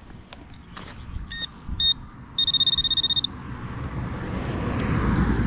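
Metal detector giving two short high beeps, then a longer high, fast-pulsing tone as the coil passes over a target. After it, the rumble and hiss of a passing vehicle build up and are loudest near the end.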